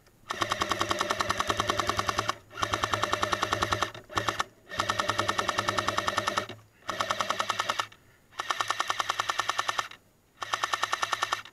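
Airsoft M60 light machine gun firing on full auto in seven bursts of rapid, evenly spaced shots, most lasting one to two seconds, with one very short burst about four seconds in.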